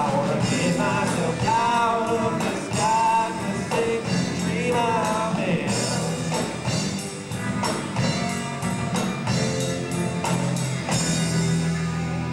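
Live rock band playing: electric guitars, bass guitar and drum kit, with a singer's voice over about the first half.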